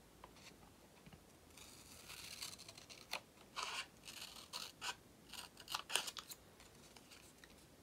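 Scissors cutting a slot into a thin paper index card: a run of quiet, short snips.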